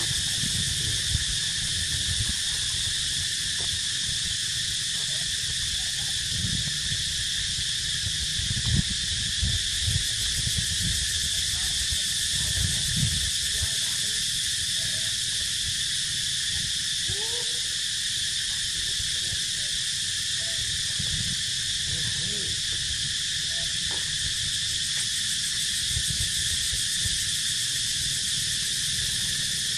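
Steady high-pitched insect chorus droning without a break, over an uneven low rumble, with a few faint short calls.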